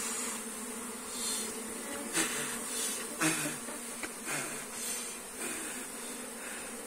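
Honey bees buzzing steadily in a mass around their exposed comb, with several brief rustles and crackles as honeycomb is pulled out by hand.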